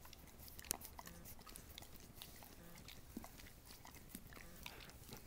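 Dog licking yogurt off a plastic spoon: faint, irregular wet clicks and smacks of the tongue.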